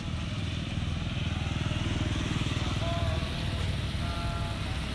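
A small motorcycle engine running as it passes by on the road, growing louder over the first couple of seconds and then easing off.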